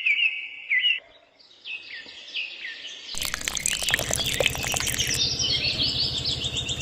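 Birds chirping in quick runs of short repeated notes. About three seconds in, thicker chirping with clicks joins them.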